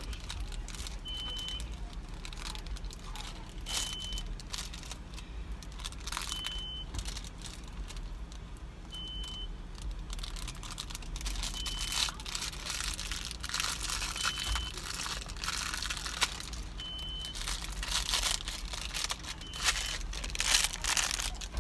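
A small crinkly foil-like toy wrapper being handled and torn open by hand: irregular crinkling and tearing that grows busier and louder through the second half.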